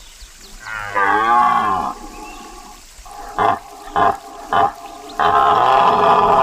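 Deer calling: a call of about a second whose pitch wavers and falls, three short calls in quick succession, then a longer, steadier call near the end.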